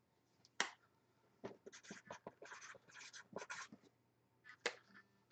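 Faint scattered taps, clicks and rustling of hands handling a trading card and its packaging as it is boxed up, thickest in the middle, with a sharper tap about half a second in and another near the end.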